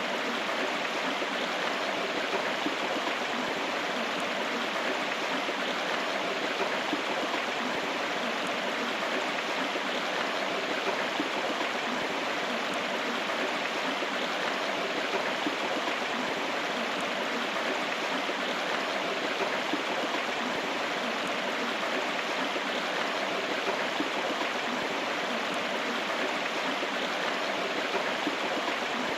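River water flowing steadily, an even rushing with no breaks or changes.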